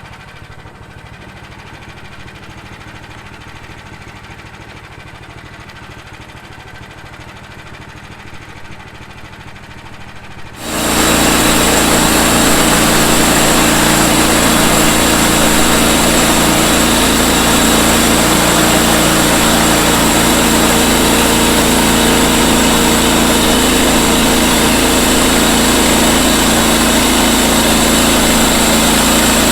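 Small gasoline engine of a band sawmill idling steadily, then about ten seconds in it jumps abruptly to a loud, steady full-throttle run that holds to the end.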